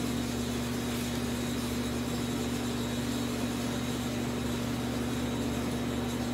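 Steady mechanical hum, like a motor running continuously, with a low drone and a faint high whine.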